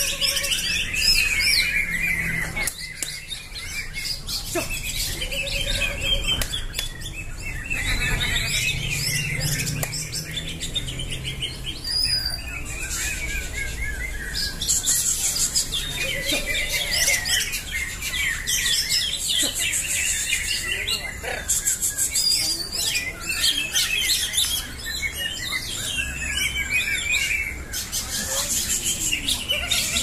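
Many caged cucak hijau (greater green leafbirds) singing at once in a contest, a dense chorus of overlapping high chirps, warbles and fast trills.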